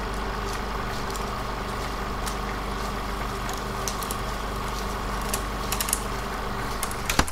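A 16mm film projector sound effect running: a steady mechanical hum with constant tones and faint intermittent ticks, with a sharp click near the end.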